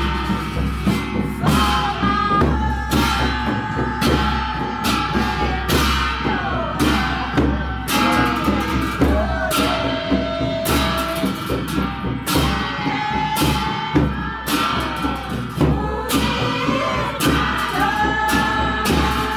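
Music: a song with a singing voice over a steady, regular drum beat.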